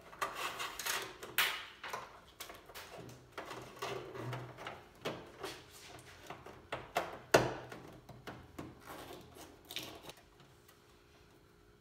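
Wire in plastic split loom being fished through a car's trunk lid: irregular rustling and small clicks against the lid, with one sharper knock about seven seconds in. The handling stops at about ten seconds.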